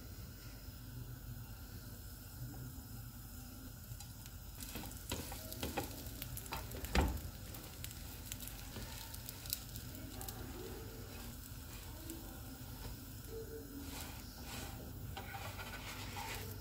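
Burger buns toasting in butter on a hot nonstick tawa, a soft steady sizzle. Light knocks and taps as the bun halves are set down and pressed, the sharpest about seven seconds in.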